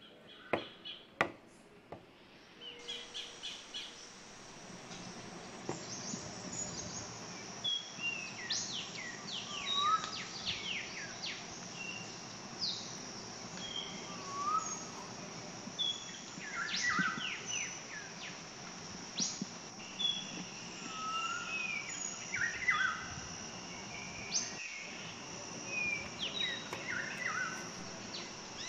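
Birds chirping and calling, many short rising and falling notes, over a steady high-pitched insect drone that sets in about three seconds in. A few sharp clicks come in the first two seconds.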